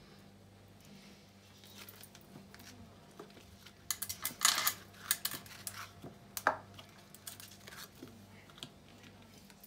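Crisp square biscuits clicking and tapping against one another as they are picked up and laid in rows in a baking pan: a cluster of short sharp clicks starting about four seconds in and dying away about eight seconds in. A faint steady low hum runs underneath.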